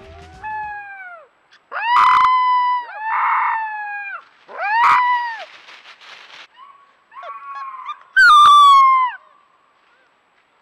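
Gray wolf pup howling: about six short, high-pitched howls, each rising then falling in pitch, the loudest near the end. These are a young pup's first howls, calling for its mother.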